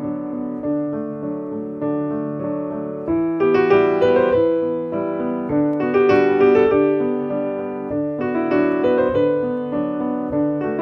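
Background piano music: single struck notes and chords that ring and fade, growing fuller and louder about three seconds in.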